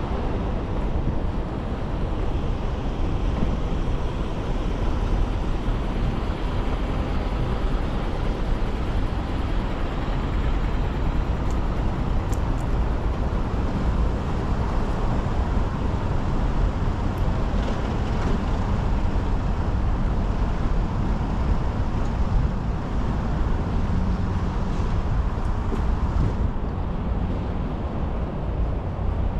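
Steady road traffic noise with a deep low rumble.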